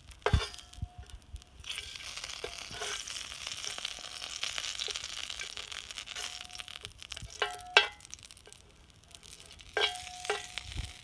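Coconut oil sizzling in a hot cast-iron skillet while a metal spatula scrapes and pushes it around. The sizzle swells in the middle and fades, and the spatula knocks on the iron several times, each knock ringing briefly.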